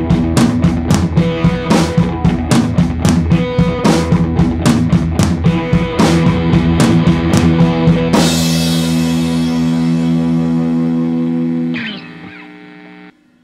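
Rock background music with guitar and a steady drum beat, ending on a held chord that rings out, fades and then cuts off near the end.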